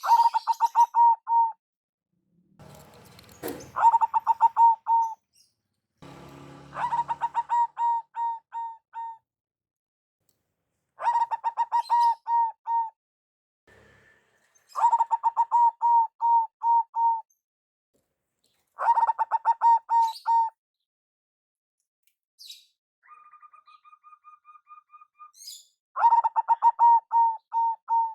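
Zebra dove (perkutut) song: about seven phrases of rapid, staccato cooing notes, each lasting a second or two with pauses between. A fainter, higher run of short even notes comes shortly before the last phrase.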